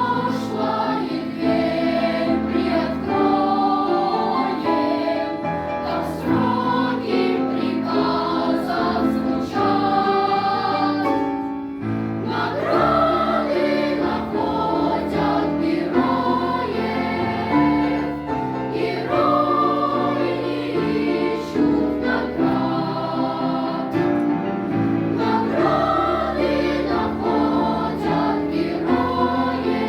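A choir singing a song in Russian over an instrumental backing, with sustained bass notes under the voices.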